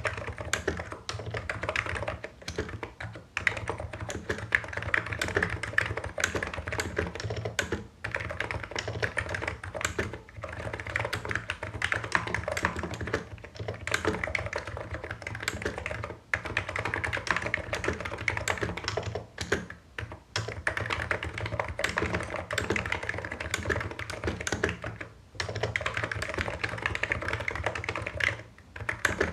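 Hansung Office Master capacitive (non-contact) keyboard being typed on steadily and quickly: a dense run of soft key strokes, broken by several brief pauses.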